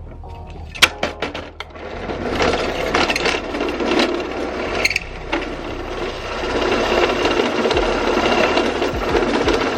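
A few sharp clicks, then from about two seconds in a steady grinding rasp of a tool boring a connector hole in the Bose S1 Pro speaker's plastic housing.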